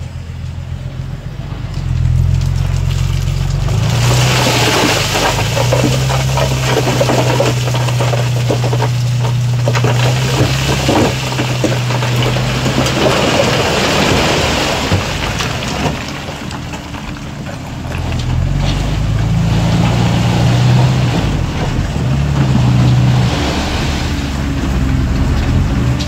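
Heavy diesel construction machine engine running and speeding up about two seconds in, then working under load. From about four to fifteen seconds it is joined by a loud gritty rattle and crunch of stone being moved. The engine works on strongly again near the end.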